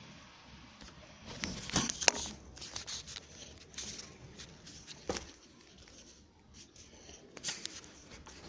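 Handling noise: rustling and scraping with a few sharp knocks, the loudest about two seconds in.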